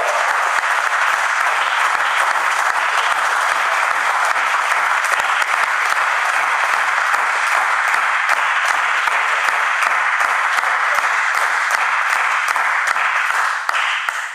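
Spectators clapping in a sustained round of applause, which thins out near the end.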